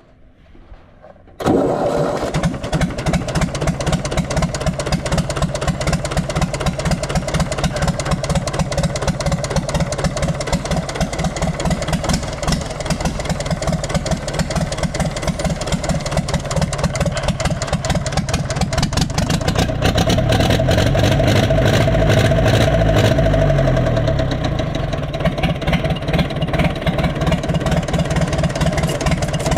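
Universal 550 tractor's diesel engine starting about a second and a half in, catching at once and running with a fast, even beat. It is revved up for a few seconds about two-thirds of the way through, then drops back.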